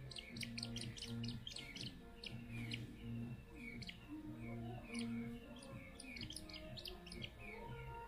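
Downy raptor chicks giving a rapid series of short, high begging cheeps, each sliding down in pitch, as they are fed raw meat from tweezers.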